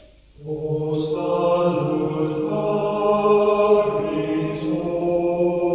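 Male voices chanting slowly on long held notes that step gently from pitch to pitch, coming in about half a second in.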